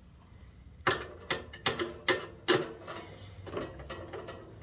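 Sharp clicks and knocks from parts of an opened-up electric heater being handled, about five in quick succession, then a few fainter taps.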